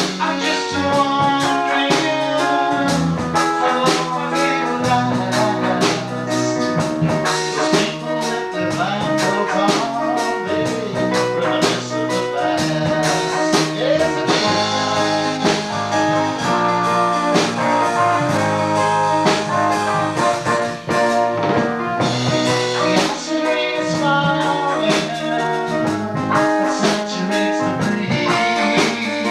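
A band playing a song: sung vocals over guitar and a drum kit with a steady beat.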